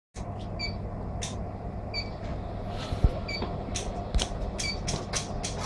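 Steady electrical hum from an induction brazing machine, with a short high beep repeating about every second and a half and scattered small metallic clicks and taps as the saw blade and silver brazing rod are worked at the coil; one louder knock about three seconds in.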